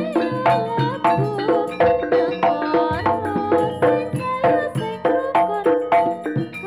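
Live jaranan ensemble music: kendang hand drum and struck, ringing metal gamelan tones keeping a fast, steady beat.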